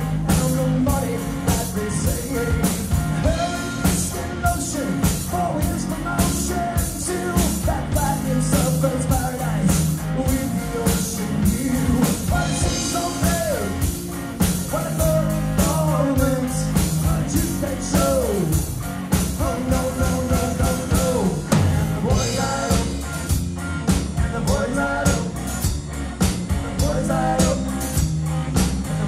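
Live rock band playing: electric guitar, bass guitar and drum kit with a steady beat, and a sung lead vocal.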